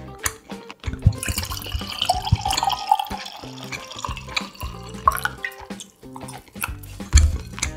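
Red wine being poured from a glass bottle into a wine glass, splashing and trickling, over background music.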